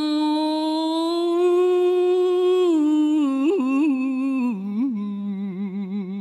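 Solo male voice chanting Khmer smot, unaccompanied. It holds one long note that rises slightly, then bends through wavering ornaments, drops lower about four and a half seconds in, and ends in a fast, even vibrato.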